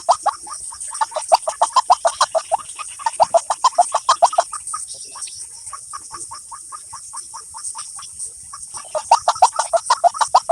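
A bird call made of fast, short clucking notes, about eight a second, in long runs, used as a lure for bird trapping. The runs fade for a few seconds in the middle and come back loud near the end, over a steady high hiss.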